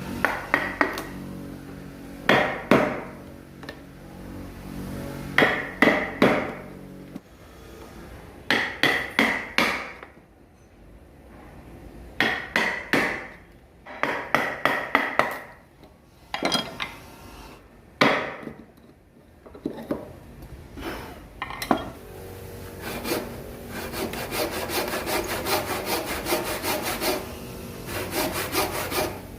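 A hand saw cutting wood with back-and-forth strokes, in short runs of a few strokes with pauses between them, then a steadier, faster run of strokes from about two-thirds of the way through. A low steady hum fades out in the first several seconds.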